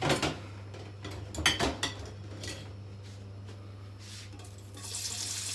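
A few clinks of utensils against cookware in the first two seconds, then near the end hot oil in a wok starts to sizzle as sliced onions go in to be sautéed.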